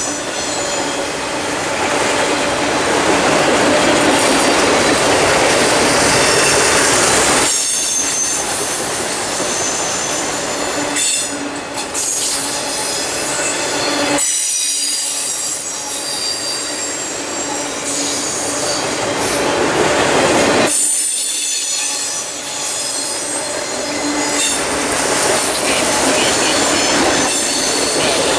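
Loaded multilevel autorack freight cars rolling past close by: a loud, steady rumble of steel wheels on rail with high-pitched wheel squeal that comes and goes.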